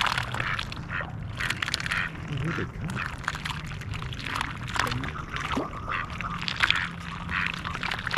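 Mallard dabbling in the shallows, its bill sifting water and pebbles with a dense run of irregular wet clicks and splashes.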